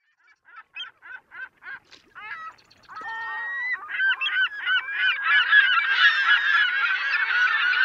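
A flock of birds honking. Single honks come in an even series of about three a second at first, then from about three seconds in many overlapping calls build up, growing louder and denser.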